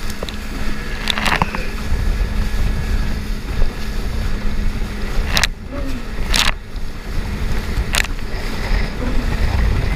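Jet ski running at speed over the water: steady wind buffeting on the microphone over rushing water, broken by four sharp water slaps.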